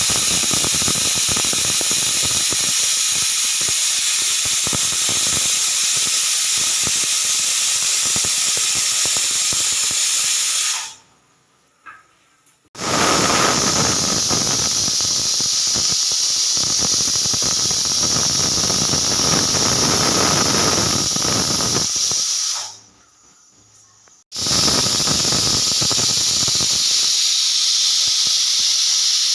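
Pressure cooker whistle, its weight valve lifting and venting steam with a loud hissing whistle. It blows three times, each blast lasting about ten seconds, with a short silence between.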